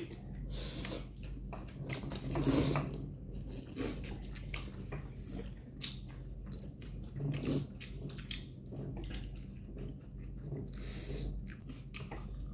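People chewing and biting into spicy noodles, with scattered small clicks and short noisy bursts of eating, over a low steady hum.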